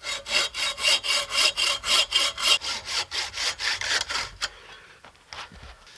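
Hand saw cutting into the trunk of a standing dead maple, with quick, even back-and-forth strokes several times a second. The cut is notching the tree so it can be pushed over. The strokes fade out about four and a half seconds in.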